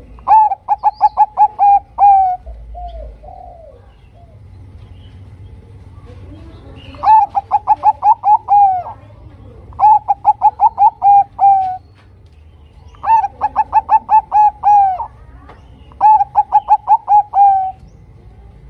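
Bangkok-line zebra dove (perkutut) singing: five phrases, each a rapid run of about eight to ten short coos that ends on a longer, falling note. A few softer, lower coos come just after the first phrase.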